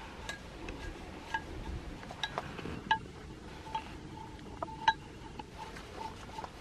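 Buck Selkirk knife carving shavings off a stick, its blade tapping down onto a steel plate that rings with a short metallic clink at each strike. The clinks come irregularly, about a dozen, the loudest about five seconds in.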